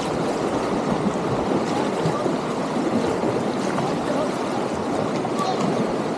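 Whitewater river rapids rushing steadily around a kayak running them.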